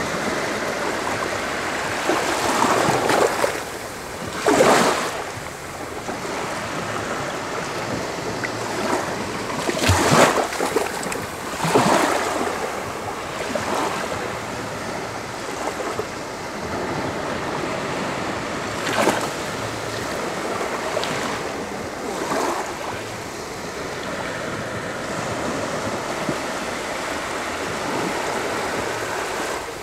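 Small Black Sea waves breaking in the shallows and washing up a sandy beach. A steady surf hiss swells into a louder wash every few seconds.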